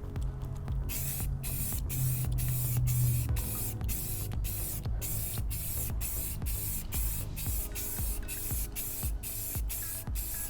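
Aerosol can of spray paint and primer hissing in short repeated bursts, about two a second, over background music.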